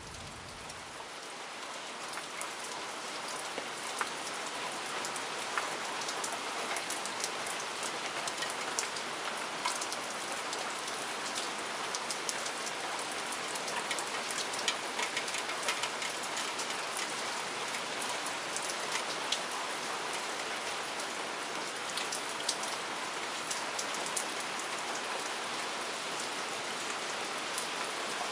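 Steady rain falling, with many separate drops ticking through an even hiss. It swells in over the first couple of seconds, then holds steady.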